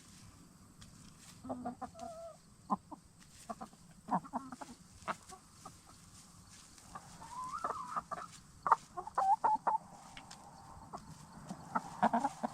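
Black Star and Bielefelder hens clucking in short scattered calls as they settle in for the night, with a busier run of calls about seven to ten seconds in and another near the end.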